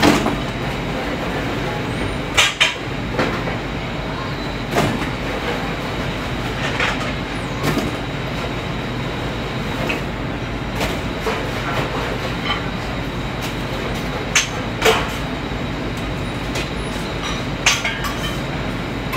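Steady rushing noise of a commercial kitchen's exhaust hood and griddle, broken every few seconds by sharp clanks of metal utensils and pans on the cooking line.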